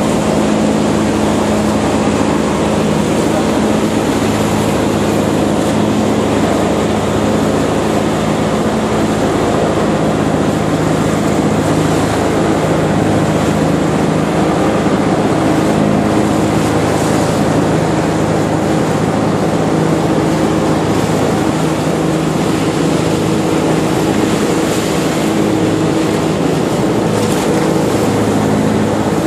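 Outrigger boat's engine running steadily under way, a constant drone, with a haze of wind and water noise over it.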